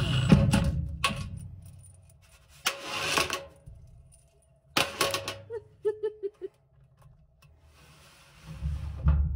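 Cordless impact driver driving screws into the sheet-metal floor of a large steel mailbox. It runs at the start, briefly about three seconds in, and again near the end, with metal clicks and clinks of screws being handled in between.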